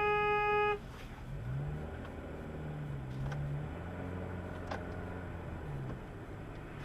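A held car horn cuts off under a second in. Then a car engine runs and revs, its pitch climbing and dropping several times as the car accelerates.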